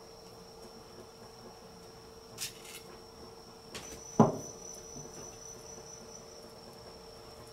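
A steady high-pitched cricket trill runs throughout, with a faint low hum under it. About four seconds in comes a sharp knock, the loudest sound, as the kitchen knife is set down on the plastic cutting board, with a few lighter clicks around it.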